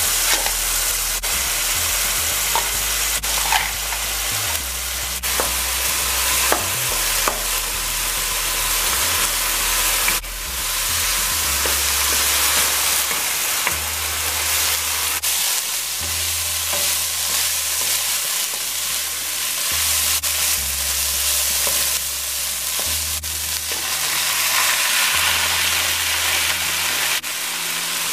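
Water at a rolling boil in a stockpot as fresh lasagna sheets go in, then, from about ten seconds in, ground chicken sizzling in a nonstick frying pan, stirred and scraped with a wooden spatula, with small clicks from the spatula on the pan.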